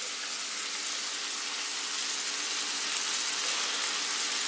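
Perch and walleye fillets sizzling in hot butter in a frying pan, a steady frying hiss.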